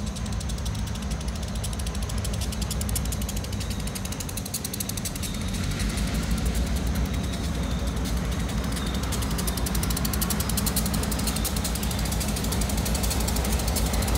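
Housatonic Railroad diesel locomotive No. 3600 approaching, its engine running with a low, steady sound that grows louder from about halfway through. A fast, high ticking runs over it.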